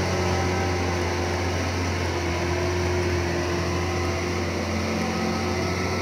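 Diesel engine of a loaded mining dump truck running steadily as the truck drives slowly: a constant low drone under an even hiss.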